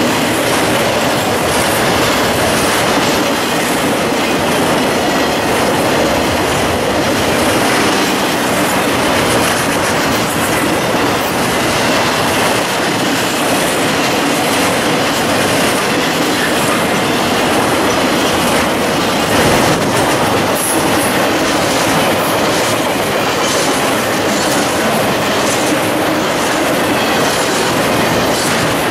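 Intermodal freight train passing close by: trailer-carrying flatcars roll steadily with a continuous rumble and rattle, and the wheels click over the rails.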